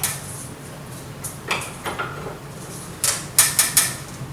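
Metal clinks and knocks of a spanner on a tight nut, a few scattered taps and then a quick cluster of four near the end, over a steady low hum.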